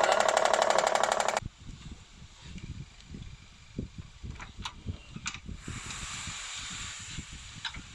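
Honda CR-V engine running with a fast, even ticking-knocking noise that cuts off abruptly about a second and a half in; the mechanic traces the noise to a faulty pulley rather than the engine. After it come faint scattered thumps, clicks and a brief hiss.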